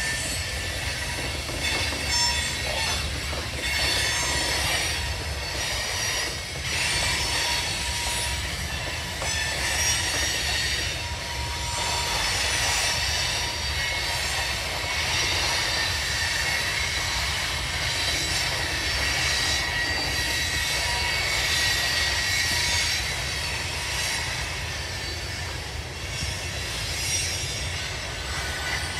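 Freight train of boxcars and covered hoppers rolling past: a steady rumble of wheels on rail, with high-pitched wheel squeal ringing over it.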